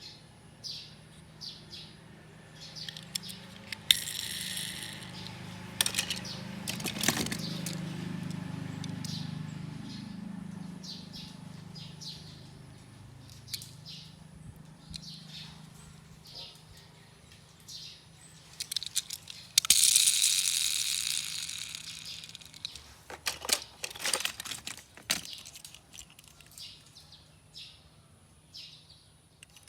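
Small metal clicks and clinks with stretches of rolling noise, typical of diecast toy cars being handled and rolled on a hard surface. Birds chirp faintly in the background.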